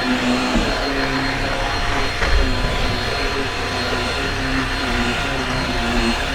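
Shark Rocket stick vacuum running steadily, its motor pitch shifting slightly up and down as it is worked over carpet, with a brief low bump about two seconds in.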